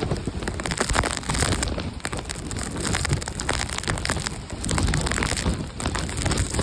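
Typhoon rain and wind: a dense hiss of rain pattering on surfaces, with a gusting low rumble that swells and fades as wind buffets the microphone.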